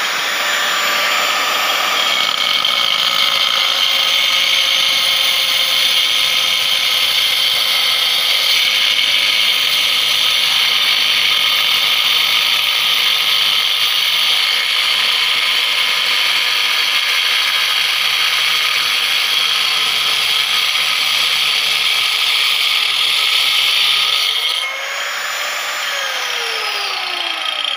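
Black & Decker 820 W angle grinder cutting through a hard stone slab: a steady, high grinding whine under load. About 25 seconds in the blade comes out of the cut and the load drops; the motor's pitch rises briefly, then falls as it winds down.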